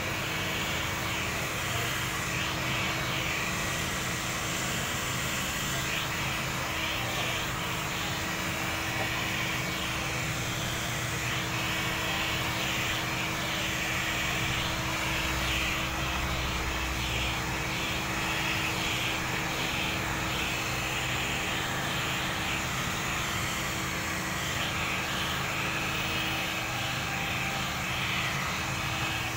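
Electric heat gun running steadily, its fan blowing hot air over window tint film to shrink it to the curve of a car windshield before fitting.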